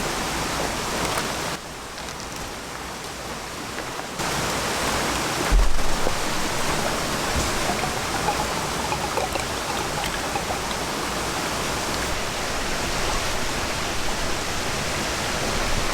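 Steady rushing of water, an even hiss-like wash. It drops quieter for a couple of seconds near the start, and there is a brief low thump about five and a half seconds in.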